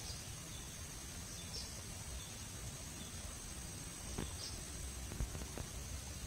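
Outdoor ambience of insects droning on one steady high note, with a few short faint chirps and a couple of soft clicks about four and five seconds in.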